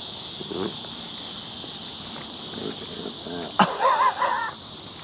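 Steady chorus of summer insects. About three and a half seconds in there is a sharp click, then a short wavering call lasting about a second.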